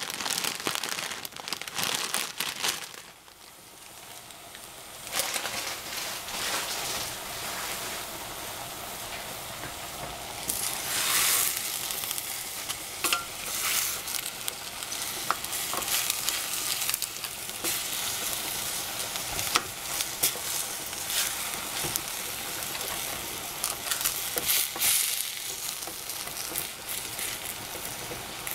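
Greens, oyster mushrooms and bean thread noodles sizzling in a stainless steel saucepan while a wooden spatula stirs them, with irregular scrapes and knocks of the spatula against the pan. A plastic bag crinkles in the first few seconds.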